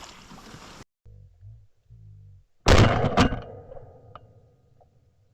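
Two shotgun shots about half a second apart, a little under three seconds in, each a sharp loud crack with a short fading tail. Before them, a steady hiss of wind on the microphone cuts off abruptly.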